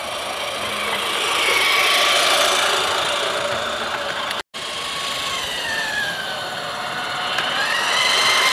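Battery-powered electric motor of a Playmobil radio-controlled diesel locomotive whining as the freight train runs along plastic track, with a steady rattle of the wagons' wheels. The whine's pitch slides down and back up as the speed changes, and the sound cuts off for an instant about halfway.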